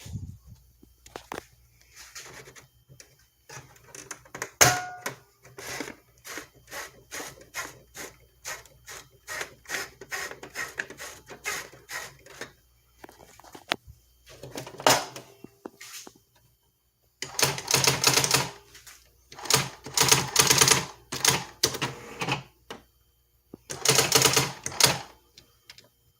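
Brother GX-6750 electronic daisy-wheel typewriter printing as it is typed on: sharp separate clacks, a few a second, then three louder, busier runs of rapid strikes in the second half.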